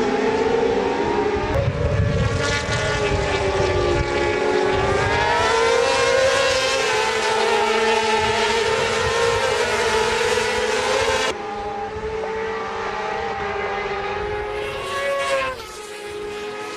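Racing motorcycle engines running, their pitch rising and falling with the revs. About eleven seconds in the sound cuts off abruptly to a quieter engine sound, which swells again briefly near the end.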